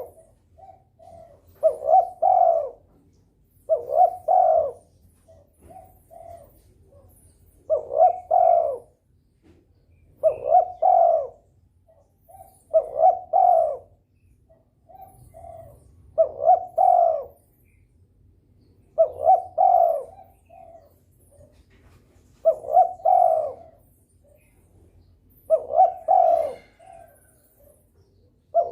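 Derkuku dove in breeding condition cooing vigorously: a short phrase of deep coos repeated about every two to three seconds, with softer short notes between phrases.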